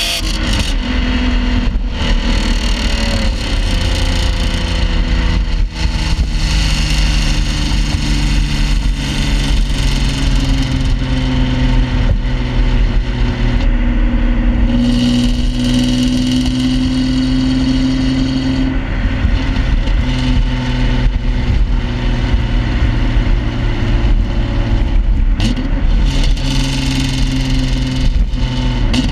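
1995 BMW E36 M3's straight-six running steadily, heard right at the twin tailpipes through the stock muffler with its packing taken out and the catalytic converter and resonator removed. The pitch drifts gently up and down a few times.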